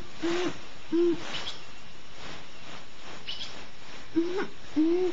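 Owl hooting in short, even-pitched hoots: two close together near the start and two more near the end, over a faint steady hiss, with a few faint high chirps between them.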